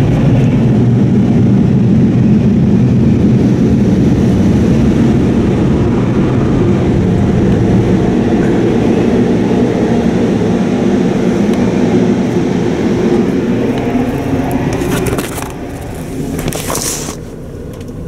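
Car wash dryer blowers blowing hard over the car, heard from inside the cabin as a loud, steady roar. It fades about fifteen seconds in as the car pulls away from them, with a short hiss just after.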